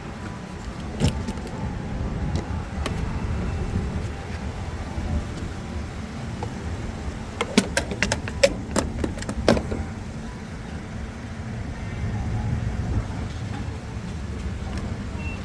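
Car driving, with a steady low rumble of engine and road noise. About halfway through comes a quick cluster of sharp clicks and knocks.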